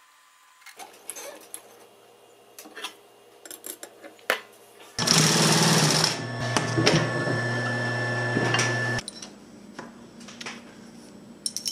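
Small clicks of parts being handled, then the Consew 206RB walking foot sewing machine runs for about four seconds, loudest in its first second, and stops abruptly.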